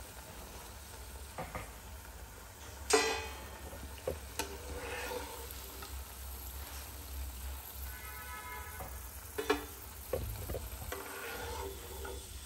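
Besan-battered potato slices sizzling in hot oil in a nonstick kadai as a steel spatula lifts them out, with several sharp clicks of the spatula against the pan, the loudest about three seconds in, ringing briefly.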